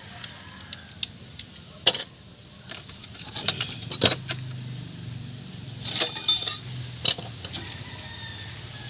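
Loose metal hand tools and brake parts clinking and knocking against each other, with a short burst of ringing metallic clatter about six seconds in. A low steady hum sets in partway through.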